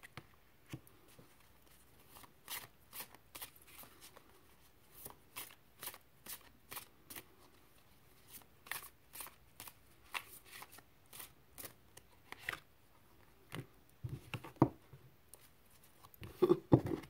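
Tarot cards being shuffled by hand: a run of soft, irregular clicks and flicks about two a second, with a few louder knocks near the end.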